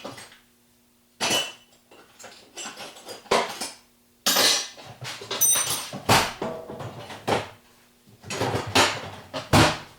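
Hammer blows on a steel punch, each a sharp metallic clank with a ringing tail, about nine or ten at uneven spacing, knocking a part out. The hardest strike comes near the end.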